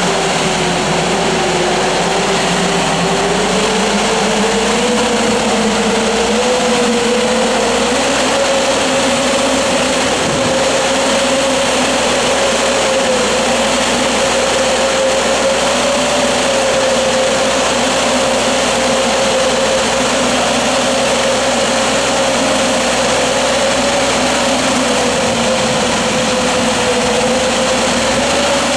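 Tractor-drawn oscillating fan sprayer at work: a steady loud rush of its fans blowing spray, over the tractor's engine drone. The running pitch rises over the first several seconds and then holds steady.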